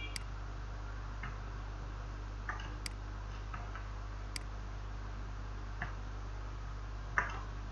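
Irregular, sharp computer mouse clicks as strokes are drawn, spaced a second or more apart, with the loudest near the end, over a steady low electrical hum.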